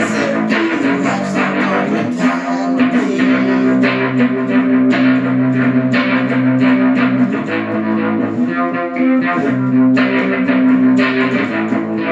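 Guitar playing chords, strummed and left to ring, changing chord every few seconds.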